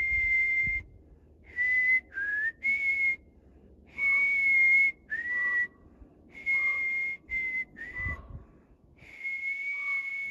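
A person whistling a slow tune: clear, long notes, some sliding up into pitch, in about ten phrases with short gaps between them.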